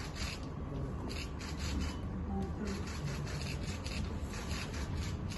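Rubbing and rustling of a wrapped packet as it is lifted and handled, with scattered small clicks and faint murmuring voices in the background.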